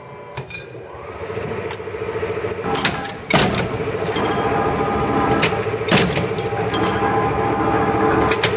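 Metal stamping press running with a steady motor hum and sharp metallic strikes of the die. There are three loud strokes about two and a half seconds apart.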